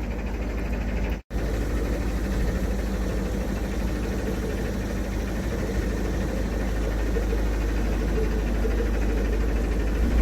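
Narrowboat's diesel engine running slowly and steadily, with a brief gap about a second in.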